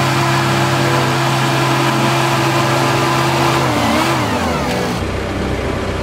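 Caterpillar D3K bulldozer's diesel engine running steadily under load while pushing snow, then the revs fall away about four seconds in.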